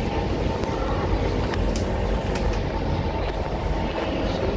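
Carriage noise of a Siemens C651 metro train heard from inside the car: a steady low rumble with faint steady tones and a few light clicks.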